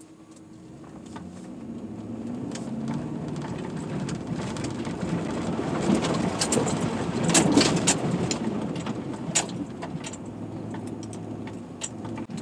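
A vehicle's engine running as it is driven over a rough back road, growing louder over the first couple of seconds. A clatter of knocks and rattles comes from the bumpy ride, thickest between about six and ten seconds in.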